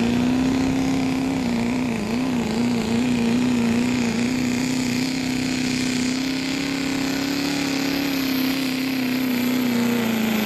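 Pro street diesel pickup's engine held at high revs under full load, dragging a weight transfer sled in a truck pull. The steady engine note wavers briefly about two seconds in, climbs a little mid-pull and eases off slightly near the end.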